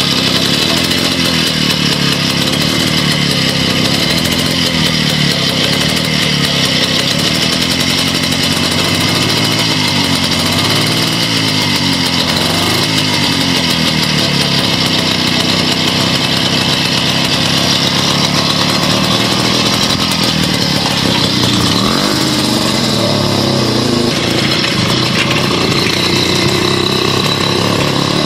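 Small ILO two-stroke engine of a Bastert light motorcycle running at idle, its speed rising and falling a few times about a third of the way in and again later, then pulling away as the bike is ridden off near the end.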